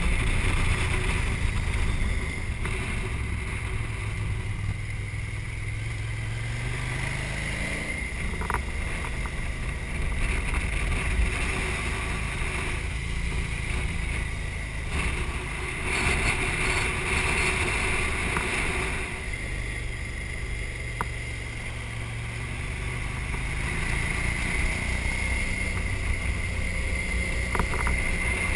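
Adventure motorcycle engine running at road speed with wind rushing over the microphone; the engine note climbs a few seconds in and changes again later as the throttle is worked.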